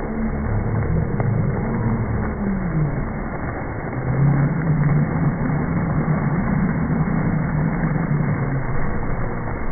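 Slowed-down, low-pitched sound of fountain jets splashing on a plaza, a muffled rumble with deep, drawn-out crowd voices wavering underneath.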